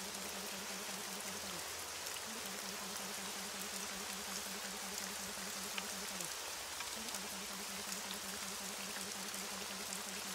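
Recorded rain falling steadily, with scattered drop ticks, used as the masking track of a subliminal affirmation audio. Under it a low steady hum drops out briefly twice, about five seconds apart.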